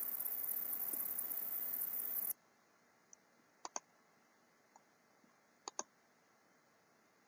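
Steady hiss that cuts off suddenly about two seconds in, followed by computer mouse clicks: a few single clicks and two quick double-clicks.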